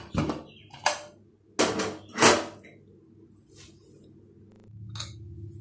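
Aluminium pressure cooker lid being twisted loose and lifted off once the steam has gone: four or so short metallic clunks and knocks in the first two and a half seconds.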